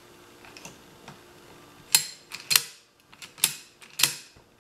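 Lever action of a Winchester Model 1873 rifle being worked by hand with its buttstock off: a run of sharp metallic clacks in quick pairs, starting about two seconds in, as the freshly reassembled action cycles properly.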